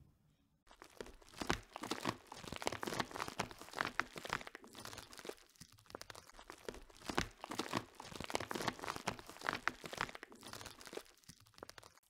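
Plastic zip pouch lined with bubble wrap being squeezed and handled, crinkling and crackling with many sharp clicks, starting just under a second in.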